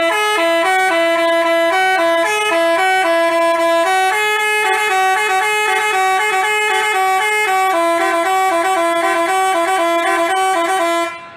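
Basuri telolet horn playing a melody of long, held notes that step up and down, several pitches sounding together, then cutting off suddenly near the end.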